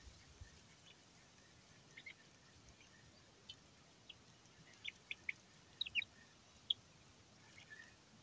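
Birds chirping faintly over a quiet background: scattered short, high chirps, several in quick succession about five to seven seconds in, some sliding downward in pitch.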